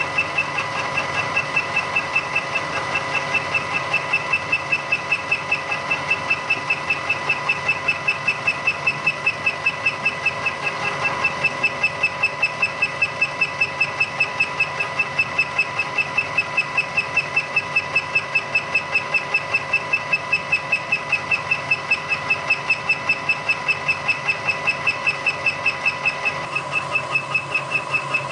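Fly cutter in a Bridgeport vertical milling machine taking a facing cut across a steel plate, its single tool bit striking the work once per turn: an even beat about four times a second over the steady running of the mill.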